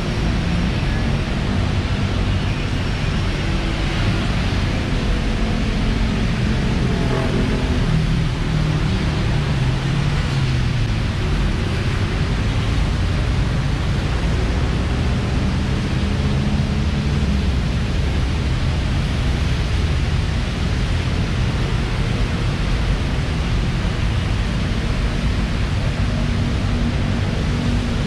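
Steady hiss of rain and wet road with the engines of passing traffic, their hum rising and falling in pitch as vehicles go by around ten seconds in, and a steady engine hum near the end.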